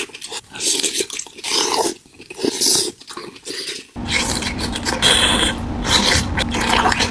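Close-miked eating of boiled onion: bites and wet chewing in short bursts, then denser, continuous chewing and mouth smacking from about four seconds in.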